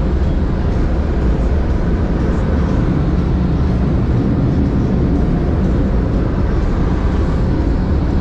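Loud, steady rumbling of automatic car wash machinery heard from inside the car.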